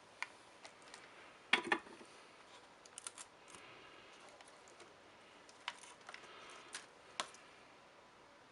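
Scattered small clicks and taps of tools and wires being handled while soldering cable wires onto an LED strip's pads, with the sharpest cluster of clicks about a second and a half in.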